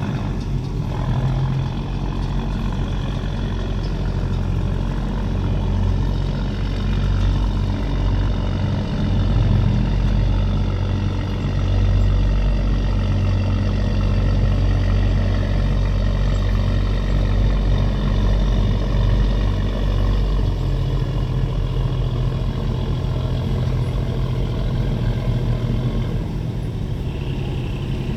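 Fishing boat engine running with a steady low hum, a little louder through the middle stretch.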